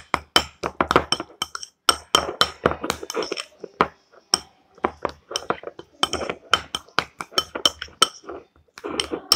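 A spoon clinking against a bowl in quick, irregular strokes, several a second, as mashed avocado with honey and lemon is stirred together.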